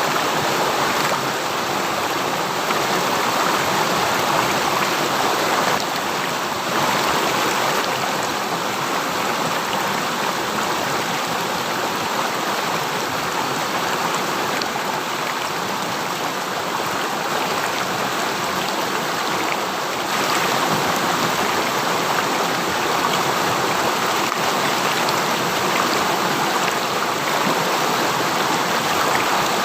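River stream water running steadily, a continuous noise of flowing water with a few small shifts in level.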